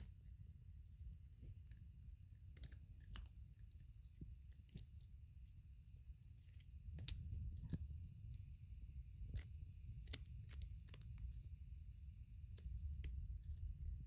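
Toy poodle chewing a hard dried pig skin chew: faint, irregular clicks and crunches of teeth on the chew, over a steady low rumble.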